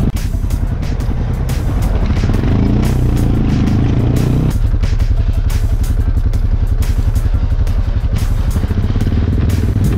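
Quad (ATV) engine running steadily on a dirt trail, with background music laid over it.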